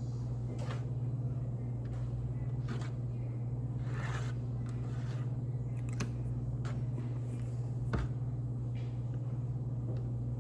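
A steady low hum runs throughout, with a few short soft clicks and rustles of objects being handled, the sharpest about eight seconds in.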